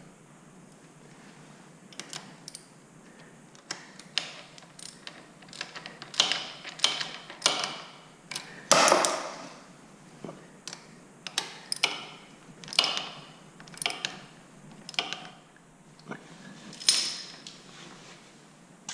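Ratchet wrench tightening the 10 mm bolt that clamps a motorcycle gear shift lever onto its shaft: short raspy runs of ratchet clicks, one every second or so, with lighter ticks between.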